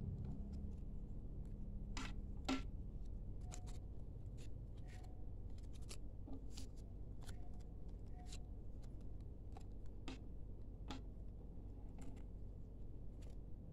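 Cardboard packaging inserts and paper leaflets being handled on a table: scattered light taps, clicks and rustles, the sharpest about two and a half seconds in, over a steady low background hum.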